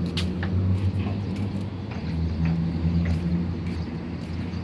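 Street traffic: a motor vehicle engine running with a steady low hum, with light clicks over it.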